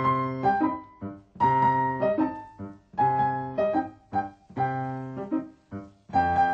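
Piano duet playing a tango. A loud held chord comes about every second and a half, each followed by a few short, quick notes.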